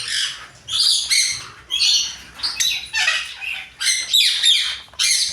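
Many small birds chirping and squawking together: short, harsh calls following one another closely and overlapping.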